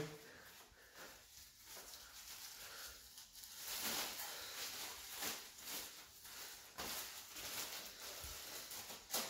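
Black plastic bag rustling and crinkling faintly in the hands as it is cut and opened out, with a short sharp sound near the end.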